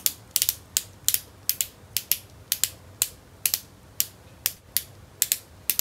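Ellis Faas Hot Lips lip pen being twisted to push the colour up to its sponge tip for the first time, its ratcheting mechanism clicking about four times a second.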